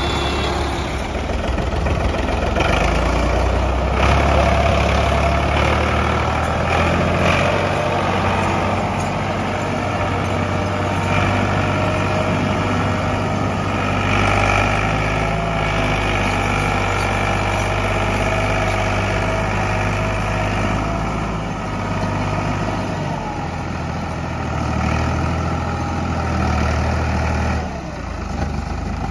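Three-cylinder Ford diesel tractor engine running hard under load while pulling a heavily loaded sugarcane trolley, its note shifting a few times, with a brief drop in level near the end.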